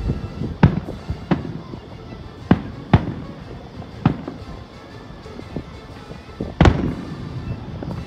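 Aerial firework shells bursting in a string of sharp, irregular bangs: several close together in the first three seconds, fewer in the middle, and the loudest bang about two-thirds of the way through.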